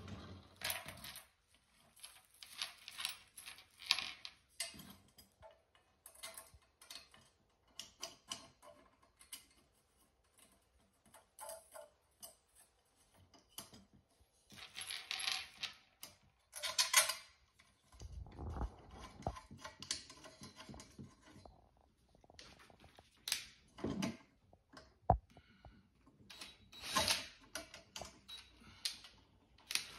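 Small metal parts being handled during flat-pack furniture assembly: irregular clicks, taps and rattles of the metal table frame and loose screws.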